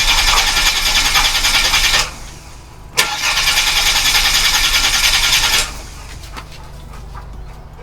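Starter motor cranking a Holden VY Commodore's 3.8 L V6 in two bursts: about two seconds, a pause, a click, then about two and a half seconds more. The engine does not catch; it is a crank-no-start after the car has stood for seven years, while fuel is being pumped back up to the engine.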